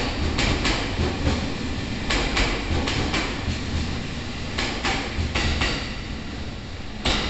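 Electric commuter train running with a steady rumble. Its wheels click over rail joints, often in quick pairs as the axles of each bogie pass, with a louder knock near the end.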